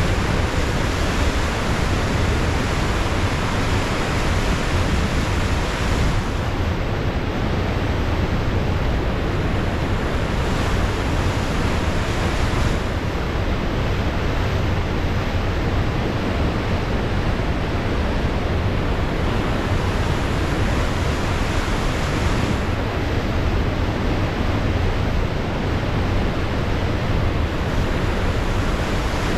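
Steady roar of ocean surf, with wind rumbling on the microphone.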